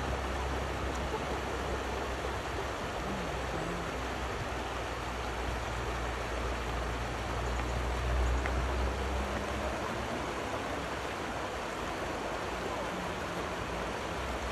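River rapids rushing steadily over rocks, an even wash of water noise with a deeper rumble that swells about halfway through.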